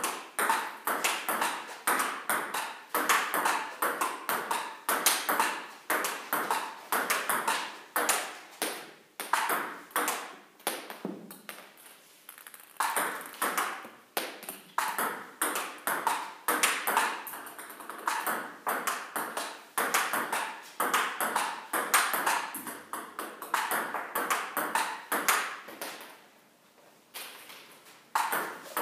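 Table tennis ball hit back and forth in a practice rally: sharp clicks of the ball on rubber paddles and the table top, about two or three a second, with short breaks about twelve seconds in and near the end.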